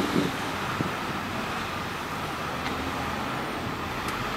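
Steady hum of road traffic, with no distinct events.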